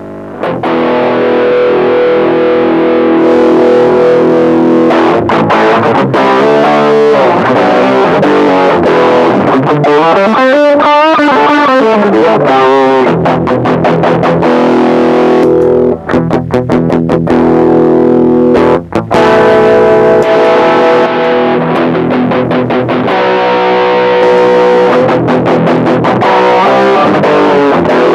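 Distorted electric guitar played through an engaged TC Electronic HyperGravity mini compressor pedal, with long held chords and notes. About ten seconds in comes a stretch of wide, wavering string bends.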